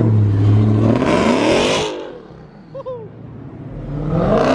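A car engine revving twice. Each rev rises in pitch and is cut off sharply, with a short faint squeak in the quiet gap between them.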